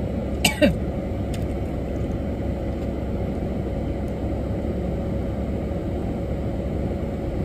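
Minivan engine idling, heard from inside the cabin as a steady low rumble with a faint even hum. A couple of short sharp clicks come about half a second in.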